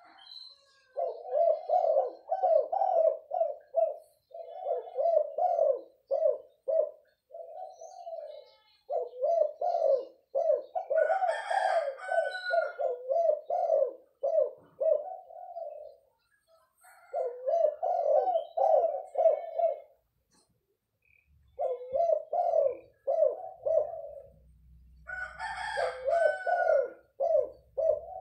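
Spotted dove cooing over and over in rhythmic phrases of repeated coos, a second or two each, with short pauses between them. About eleven seconds in and again near the end, another bird gives a higher call over the cooing.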